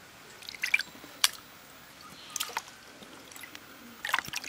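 Raw chicken pieces being rinsed in a basin of water and handled by hand: a few short, separate wet splashes and squelches.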